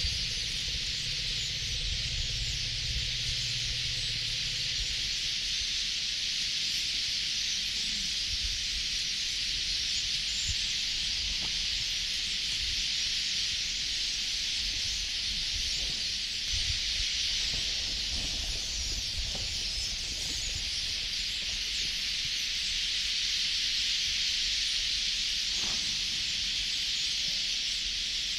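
Steady, high-pitched buzzing drone of cicadas in the bush. For the first few seconds a low steady hum lies under it, and faint low thumps come and go.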